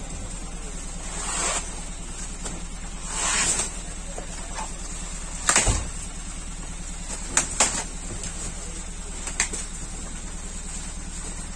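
Packages and camouflage fabric being handled in a truck bed: a couple of rustles, then a sharp knock midway, the loudest sound, and a few quick clicks, over a steady low hum.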